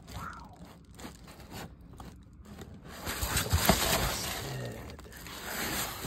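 Scraping and crunching from handling against the rusted evaporator coil and its sheet-metal casing: sparse clicks at first, then denser and louder scraping with a few sharp clicks from about halfway in.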